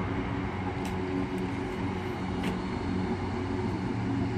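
ScotRail Class 320 electric multiple unit running into the station platform: a steady low electric hum over a rolling rumble, with a few faint high clicks.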